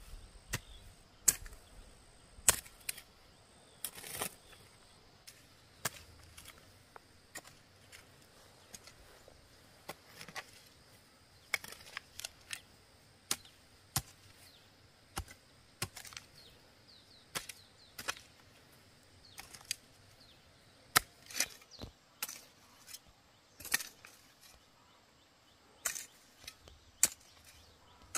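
Wooden-handled hand hoe chopping into dry earth, making a run of sharp thuds about once a second at an uneven pace as the soil is tilled.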